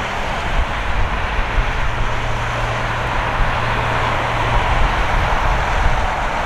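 Steady jet roar from a Boeing 777-300ER's GE90-115B engines as it comes in to land, with wind buffeting the microphone.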